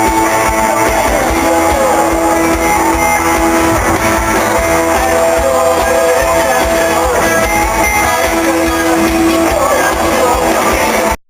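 Guitar-led rock music, with no singing, that cuts off suddenly near the end.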